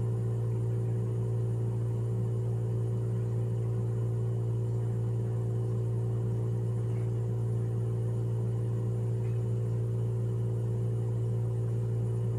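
Puritan Bennett 840 ventilator running its short self-test at the flow sensor stage: a steady low mechanical hum with fainter steady higher tones above it.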